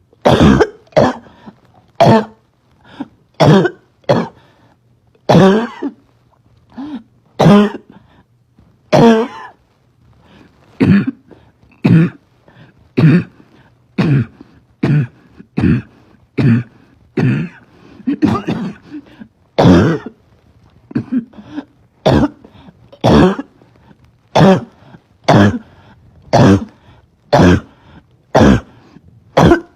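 A girl's barking cough: a long run of short cough bursts, about one a second, going on without a real break.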